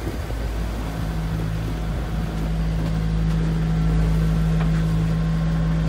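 A boat's inboard engine running steadily as a low, even hum, heard inside the enclosed wheelhouse.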